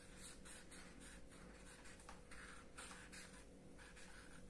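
Faint scratching strokes of a felt-tip marker on paper as letters are written, several short strokes a second.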